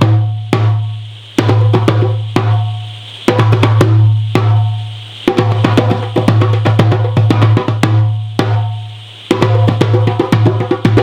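A drum played in fast flurries of strikes, each flurry followed by a deep ringing tone that dies away before the next one starts, about every one to two seconds.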